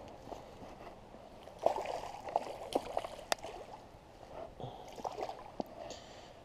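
Water splashing and sloshing as a hooked crappie is brought to the water's edge and handled, with sharp clicks and knocks. It comes in two bursts, about one and a half seconds in and again around five seconds.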